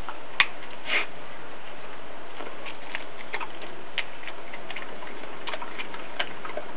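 Australian cattle dog chewing and crunching a whole raw rooster: irregular clicks and cracks of teeth on bone and flesh, the sharpest about half a second and a second in, then scattered smaller ones, over a steady hiss.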